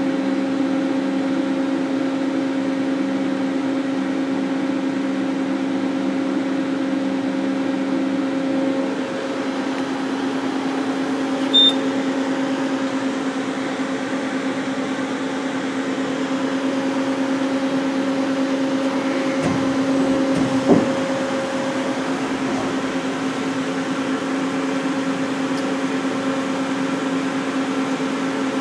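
Steady machine hum from a powered-up Hyundai SKT-V5R CNC vertical turret lathe, with a brief high beep about twelve seconds in and a short knock a little after twenty seconds.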